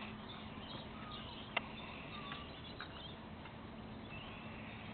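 Staffordshire bull terrier puppies giving faint, short squeaks while play-fighting, with one sharp click about a second and a half in, over a low steady hum.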